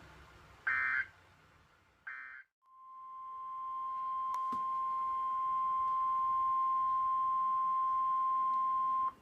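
NOAA Weather Radio SAME digital data bursts: two short warbling bursts about a second and a half apart, the end-of-message code of the warning just read. Then the steady 1050 Hz weather radio warning alarm tone fades in and holds for about six seconds before cutting off suddenly.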